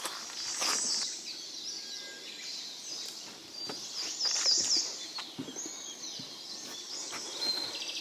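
Songbirds singing in evergreen forest: clusters of quick, high, falling notes, the loudest about half a second in and again around the middle, over scattered soft knocks.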